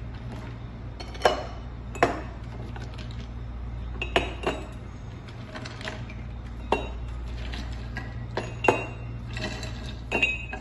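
Ice cubes dropped one at a time into glass tumblers, each landing with a sharp clink, about ten at uneven intervals. A steady low hum runs underneath.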